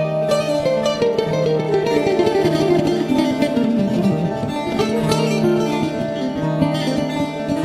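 Two bouzoukis playing together: quick plucked melody notes, with a long falling run about halfway through, over a held low note.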